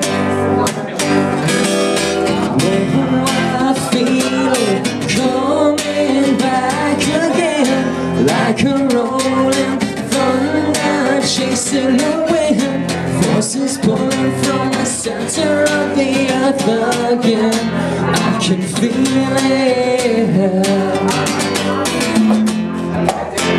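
Live acoustic band music: strummed acoustic guitar with a male voice singing over it.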